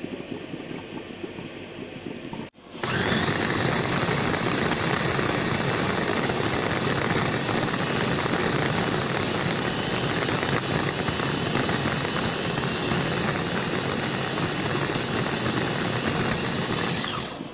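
Electric food chopper with a glass bowl running as its blades chop lemongrass stalks: a loud, steady motor whine with churning underneath. It starts about three seconds in and winds down just before the end, its whine falling in pitch.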